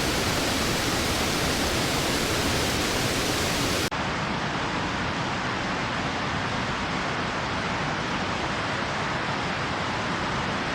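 Steady rush of fast-flowing floodwater, a dense even noise with no pitch. About four seconds in it changes abruptly to a duller rush with less hiss.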